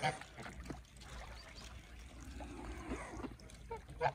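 Faint geese calling, with a couple of short honks near the end, over a quiet, noisy background.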